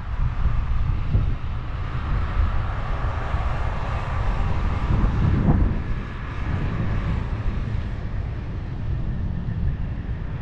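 Wind buffeting the microphone in a gusty low rumble, with a faint steady drone of a distant engine.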